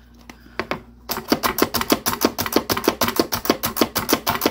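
Manual slap-press food chopper pumped by hand, the plunger clacking down and the spinning blades chopping broccoli in the glass bowl. A few separate clicks, then a fast even run of about three strokes a second starting about a second in.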